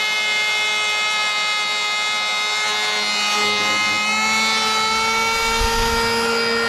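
Cordless electric hand planer running with a steady high whine, its pitch wavering slightly as it shaves a board.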